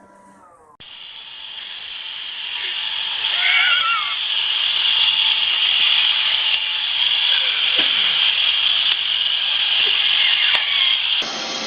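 Robot vacuum cleaner running as a steady hissing whir that grows louder over the first few seconds, with a brief high voice about three and a half seconds in. Near the end the sound switches abruptly to a fuller, lower vacuum noise.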